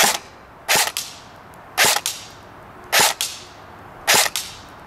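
Cybergun Colt M4 CQB electric airsoft rifle firing single shots of .25 g BBs for a chronograph velocity test: five sharp cracks about a second apart, each followed closely by a fainter click.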